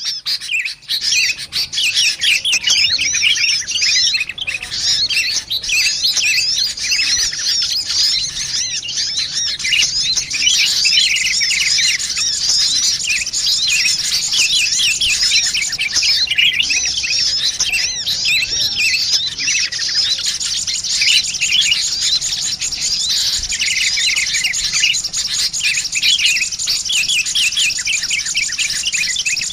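A dense, noisy chorus of rapid, high chirps from sunbirds and sooty-headed bulbuls, a bird-lure call recording played to attract wild birds. The chatter drops out briefly at the very start, then runs on without a break.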